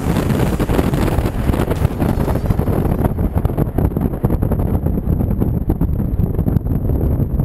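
Heavy wind buffeting the microphone of a camera mounted outside a moving off-road vehicle, over the rumble of driving at speed on a desert track. The upper hiss thins out about three seconds in.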